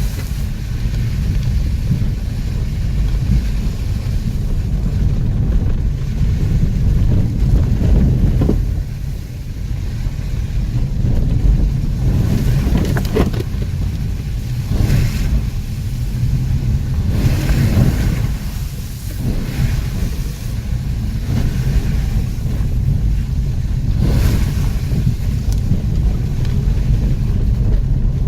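Off-road vehicle driving over rough ground: a steady low engine and drive rumble, with repeated gusts of wind buffeting the microphone.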